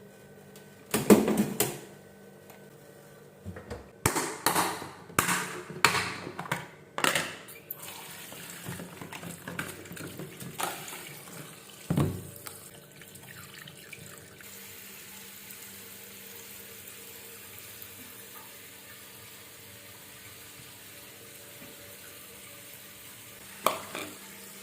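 Clattering knocks of dishes or utensils in a kitchen sink, then a tap running steadily into the sink, with one more clatter near the end.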